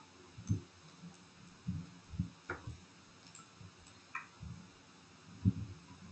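Faint, scattered light knocks and clicks of handling, about six spread irregularly over a few seconds, as a pen tablet is being set up and connected.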